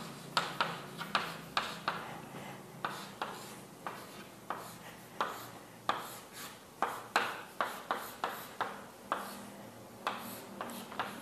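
Writing strokes: a run of short scratching taps and strokes, about two or three a second, from a pen or marker drawing on a writing surface.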